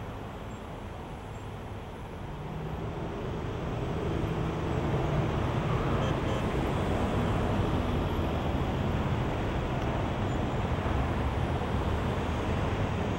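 Steady rumble of road traffic noise, swelling louder from about two seconds in and then holding steady.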